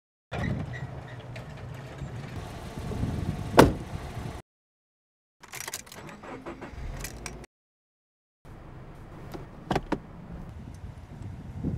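Car door sounds cut into short clips with sudden silent gaps between them: a loud single clunk of the door handle and latch about three and a half seconds in, then small clicks and knocks. Near the end comes a car's automatic gear selector being moved, with a couple of sharp clicks.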